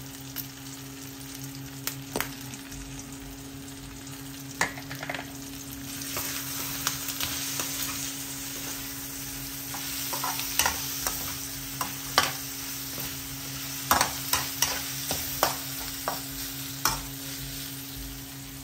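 Pork cubes sizzling in oil in a wok while a metal ladle stirs them, scraping and knocking against the pan. The sizzle thickens about a third of the way in, and the knocks come more often in the second half. A steady low hum runs underneath.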